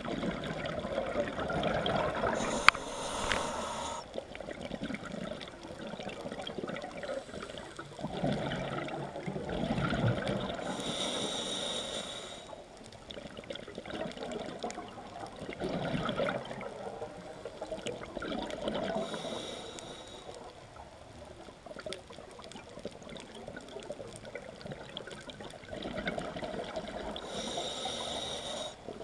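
Scuba diver breathing through a regulator, heard underwater: four hissing inhales roughly every eight seconds, each followed by a rush of exhaled bubbles. A single sharp click a little over two seconds in.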